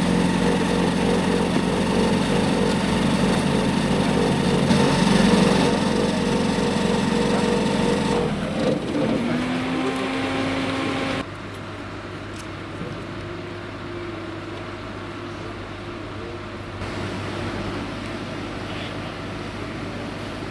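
A small engine running steadily. About halfway through it stops abruptly, leaving a quieter, even outdoor background.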